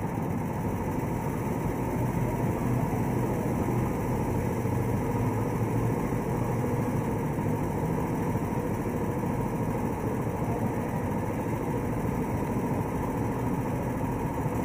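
Go-kart engine idling steadily.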